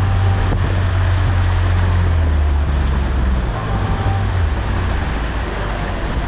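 Motorboat underway: a steady low engine rumble under a loud rushing of wind and water.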